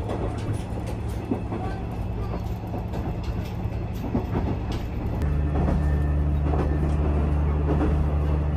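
Diesel railcar running along the line, heard from inside the passenger car: a steady low drone with faint scattered clicks, which turns louder and heavier about five seconds in.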